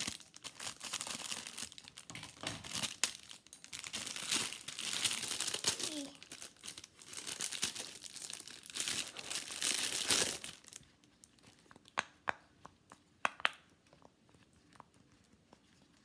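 Thin clear plastic bag crinkling and rustling as it is torn and pulled off a toy, for about eleven seconds; after that only a few faint, sharp clicks.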